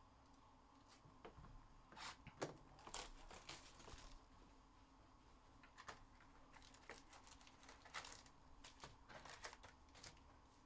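Faint crinkling of foil card-pack wrappers and light clicks and rustles of trading cards being handled, in scattered short bursts.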